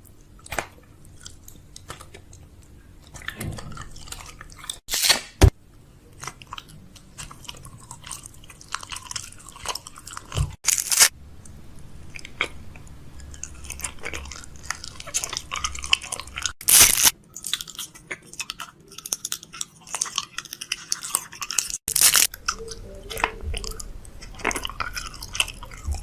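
Chewing and crunching close to the microphone: a steady crackle of small crisp crunches, with four loud sharp bites or snaps spaced about five to six seconds apart.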